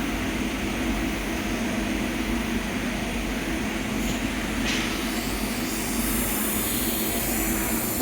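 TIG welding arc on stainless steel, a steady hiss and hum, with a high steady whine joining about six seconds in.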